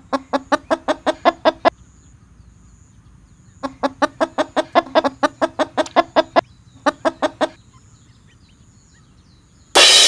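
Eastern spot-billed duck quacking in quick runs of even quacks, about five a second: three runs, the middle one the longest. Near the end, a short loud burst of noise.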